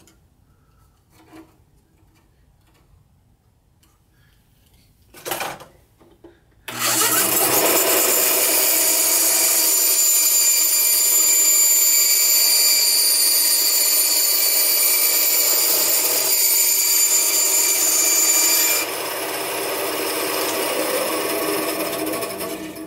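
Band saw cutting a ring off a 2-inch PVC pipe. The saw starts abruptly about seven seconds in and runs steadily with a high whine through the cut. About twelve seconds later the sound steps down and the whine drops out, and the saw fades away near the end.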